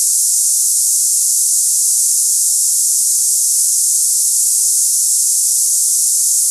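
Tinnitus sample sound: a steady, loud, high-pitched hiss with nothing low in it, the cicada-like hissing that people with tinnitus hear in their ears.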